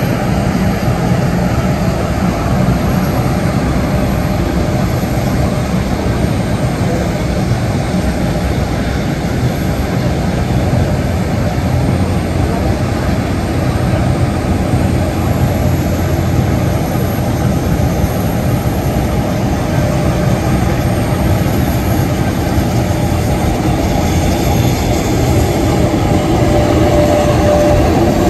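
Airliner jet engines running: a steady, loud, low engine noise across the airfield. It grows a little louder near the end as a Boeing 787 begins its takeoff roll, and a thin steady whine comes in at that point.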